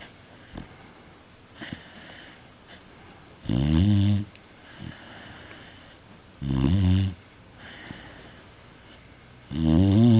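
Tibetan mastiff (do-khyi) snoring in its sleep: three loud pitched snores about three seconds apart, with softer airy breaths between them.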